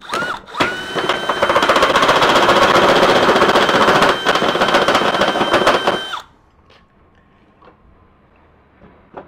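Cordless drill with a side handle cutting a hole through a truck's rear bumper: a brief spin-up, then a steady motor whine over loud grinding of the bit in metal for about six seconds, stopping suddenly as the hole is finished.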